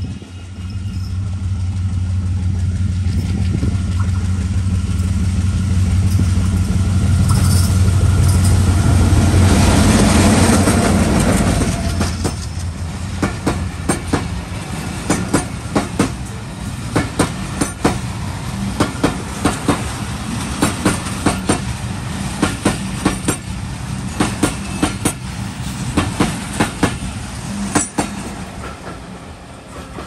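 Diesel locomotive of a passenger train approaching and passing, its engine a steady low drone that is loudest about ten seconds in. Then the coaches roll past with a regular clickety-clack of wheels over rail joints, fading near the end.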